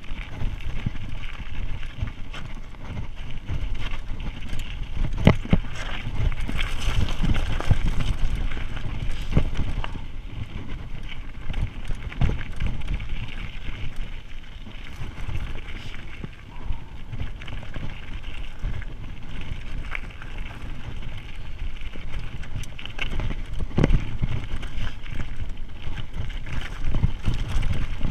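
Mountain bike descending a rocky trail: tyres rolling over loose gravel and the bike rattling, with frequent knocks over bumps, under a steady rumble of wind on the microphone.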